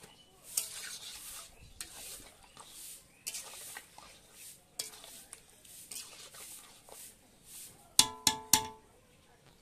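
A spatula stirring and scraping chicken and potatoes as they slow-fry in spices in a black karahi, with scattered short scrapes and clicks. Near the end come three sharp, ringing metal clanks close together.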